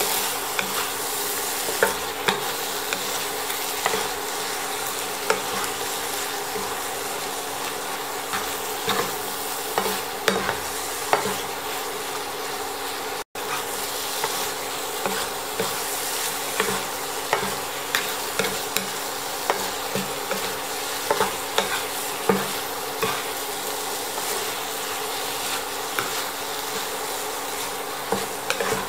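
Pumpkin and egg stir-frying in a nonstick frying pan: a steady sizzle with irregular scrapes and taps of a wooden spatula against the pan as the food is turned. The sound cuts out for an instant about halfway.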